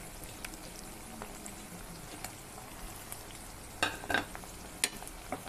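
Pressure-cooked mutton pieces and onions frying in hot oil in a kadhai, a steady sizzling crackle. A few short knocks come about four seconds in and again near the end.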